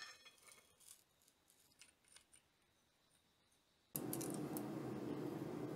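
Light metallic clicks and scrapes of a flat steel bar shifting in a vise. About four seconds in, a steady rushing noise cuts in abruptly and carries on.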